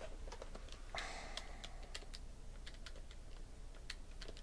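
Faint, irregular clicking of typing on a computer keyboard, with a soft rustle about a second in.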